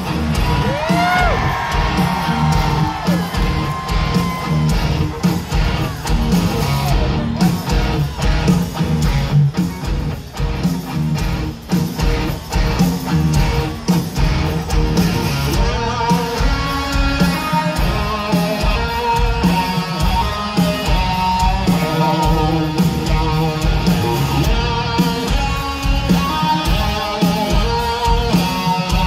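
Rock band playing live through an arena PA, heard from within the crowd: a heavy electric guitar riff over pounding drums.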